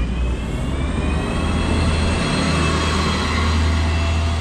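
City transit bus pulling away from the stop and accelerating: a deep steady rumble with a thin whine that climbs in pitch, then levels off.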